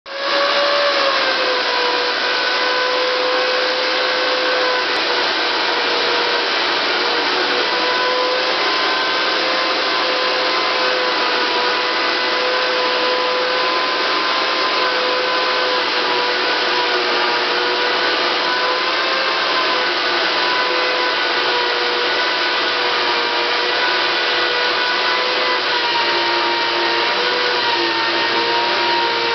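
Mafell electric woodworking machine running continuously while cutting Douglas fir, a steady motor whine over loud noise, its pitch sagging slightly now and then under load.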